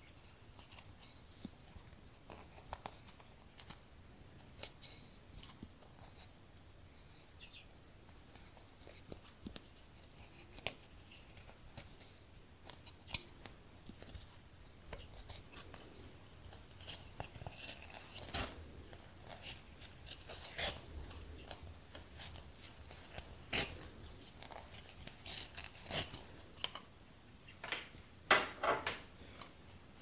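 Red cord being looped and pulled tight on a wooden lucet: soft rustling of thread and cloth with scattered light clicks, sharper and more frequent in the second half and bunched together near the end.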